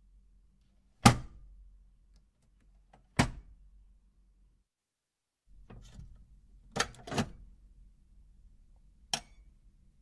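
Small steel keypad safe's door and locking bolt giving sharp metallic clunks: one about a second in, another two seconds later, a quick pair a little past the middle and a last one near the end.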